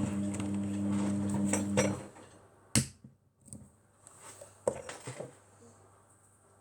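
A steady low hum that cuts off abruptly about two seconds in, then a sharp clink of kitchenware and a couple of smaller knocks and clatters.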